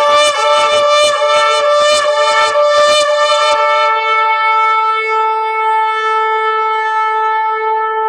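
A shofar is blown. It first sounds a fast run of short pulses, about four a second, for roughly three and a half seconds, then settles into one long steady held note.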